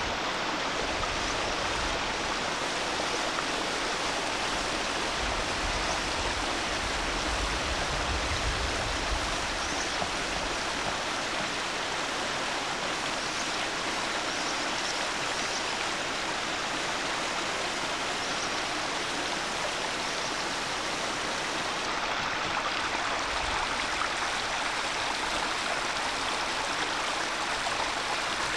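Small brook of water pouring from a metal spout and splashing down over rocks: a steady rush.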